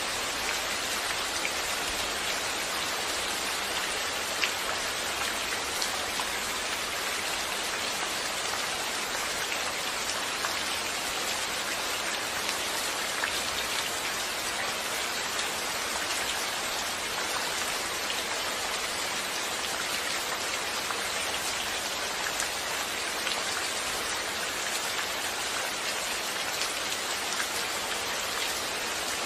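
Steady rainfall, with individual drops ticking on a surface throughout.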